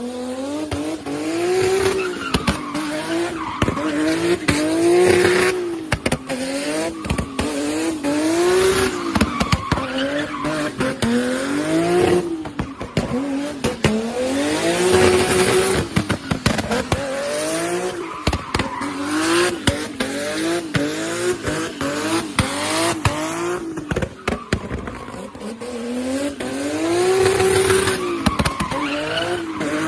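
BMW E30 engine revving hard and being driven at full throttle. Its pitch climbs and drops again and again, like repeated upshifts or throttle lifts, with sharp cracks here and there.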